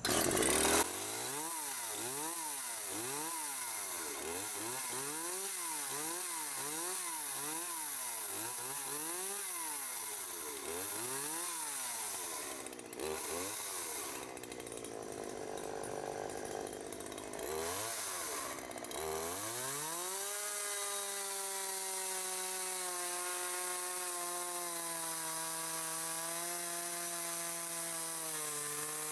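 Homelite two-stroke chainsaw revving up and down over and over. It then drops in pitch and bogs as it cuts into wood for several seconds, then runs on at a steady speed. The chain is dull, as the owner finds from how it cuts.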